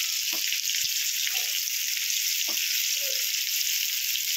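Sliced onions sizzling steadily in hot oil as a spatula stirs them, with two light spatula knocks against the pan.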